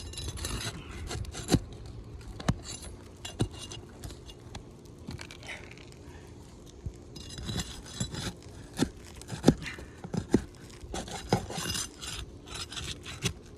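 Flat steel scraper blade scraping under asphalt roof shingles and prying at the roofing nails, in short scraping strokes broken by a string of sharp knocks and clicks.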